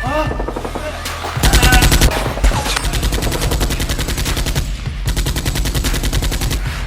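Rapid automatic gunfire sound effect in two long bursts, the first starting about a second and a half in and a second after a short break, over background music.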